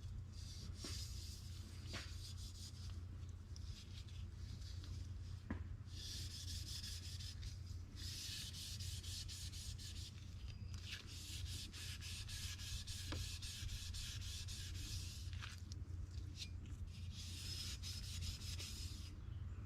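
Stainless steel car trim being rubbed and polished in stretches of quick strokes, with short pauses between, over a steady low hum.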